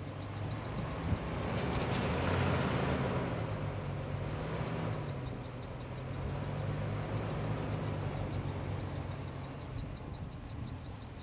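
Nissan Patrol's TB48 4.8-litre straight-six petrol engine pulling through deep snow. The engine note rises and swells with a rushing noise about a second in, then drops back about four to five seconds in and runs on steadily.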